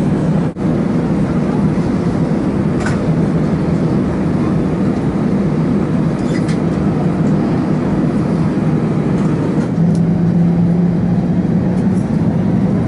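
Steady cabin noise of an Airbus A320 heard from a window seat over the wing: engine hum and airflow while the aircraft taxis and lines up on the runway. Near the end a thin rising whine begins as the engines start to spool up.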